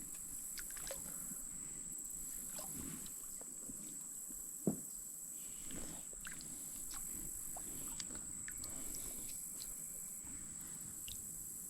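Steady high-pitched chirring of crickets or other insects, with scattered small clicks and knocks of fishing gear in the boat and one sharper knock about five seconds in.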